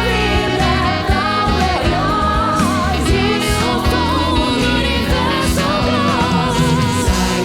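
Singers performing a song with instrumental accompaniment: a voice sings held notes with wide vibrato over other voices and a steady beat.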